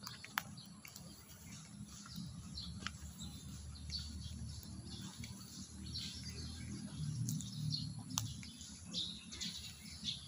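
Birds chirping in short, scattered calls over a low steady rumble, with a few sharp clicks.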